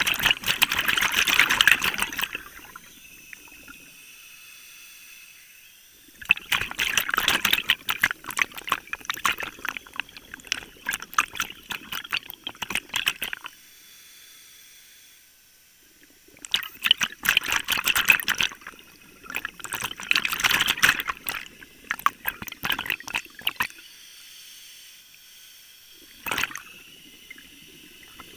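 Scuba diver's exhaled air bubbling out of the regulator underwater, in crackling bursts lasting a few seconds each, separated by quieter pauses for the in-breaths.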